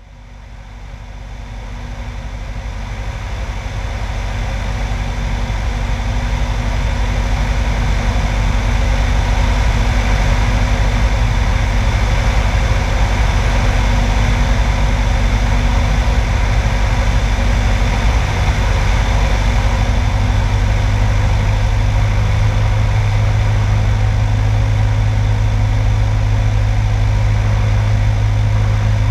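Light single-engine airplane's piston engine and propeller running steadily in flight on approach, with air rushing past the outside-mounted microphone. The sound fades in over the first few seconds, and a low hum grows stronger about two-thirds of the way through.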